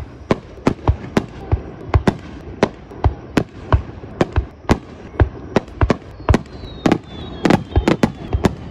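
Aerial firework shells bursting in a rapid, irregular run of sharp bangs, several a second, coming thicker in the second half. A thin high whistle falls slowly in pitch over the later bangs.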